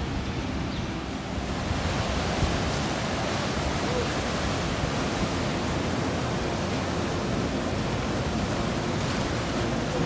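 Sea surf breaking and washing up the shore, a steady rushing wash of waves that grows a little louder and brighter about a second and a half in.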